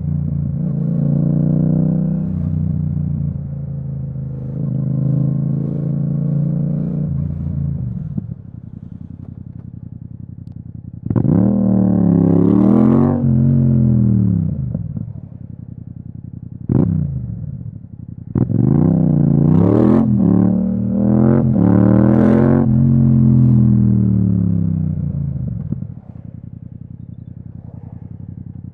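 Yamaha MT-07 parallel-twin engine through an Akrapovic exhaust. It runs steadily for several seconds, then drops off the throttle. Two hard accelerations follow, with the pitch climbing and dipping through gear changes and a short throttle blip between them, before it falls back to a low, even running sound near the end.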